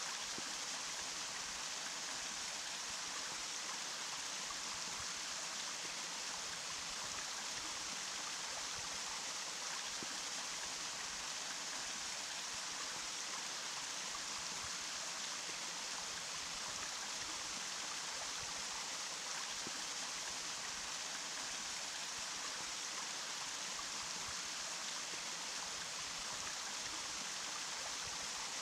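Running water rushing steadily, an even bright hiss with little deep rumble and no breaks.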